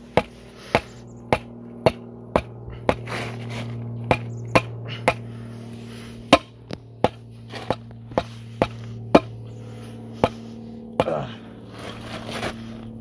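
Repeated hammer blows, about two a second, beating on a sport-bike tire's bead with tire spoons in it to force the bead off the rim.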